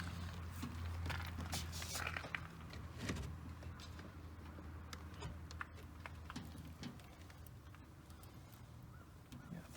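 Scattered light clicks and knocks over a steady low hum, which fades out about halfway through.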